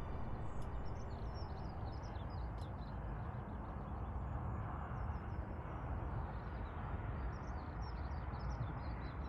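Outdoor winter morning ambience: a steady low background rumble, with small birds twittering in two short spells.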